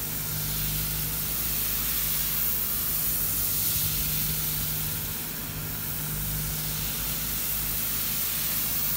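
Spray polyurethane foam gun hissing steadily as it sprays insulation foam, the hiss swelling and easing every couple of seconds, over a steady low hum.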